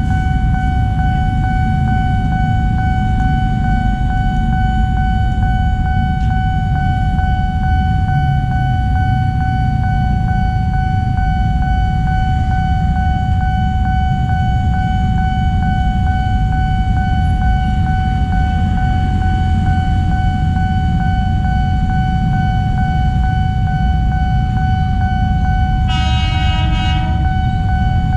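Level-crossing warning alarm sounding one steady, unbroken tone over a low rumble of waiting traffic. About 26 seconds in, the approaching electric commuter train sounds a short horn blast of about a second.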